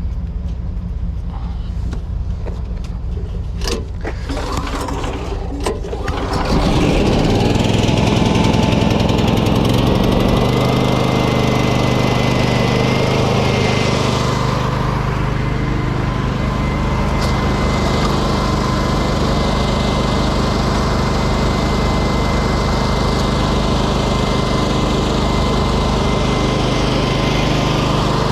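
An engine already running steadily picks up speed about six seconds in, then settles into a louder, even run with a thin high whine over it. A few sharp clicks come just before the speed-up.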